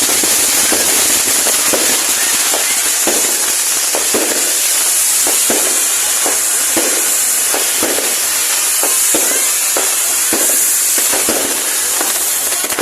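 Fireworks going off: a continuous loud hiss of burning pyrotechnics with many irregular bangs and pops, the hiss cutting off at the very end.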